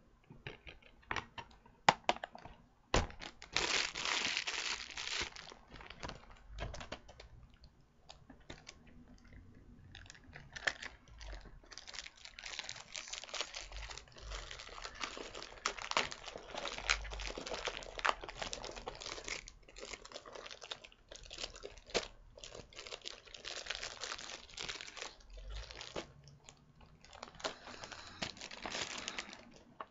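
Plastic crinkling and rustling with many sharp clicks as a DVD case is handled and worked open, in long stretches that are loudest about four seconds in and again from about twelve to nineteen seconds.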